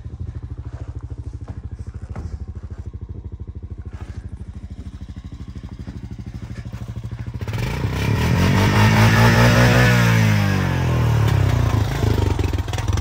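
An engine idles with an even, lumpy pulse. About seven seconds in, a louder engine revs up, holds and falls back down, then rises again briefly near the end.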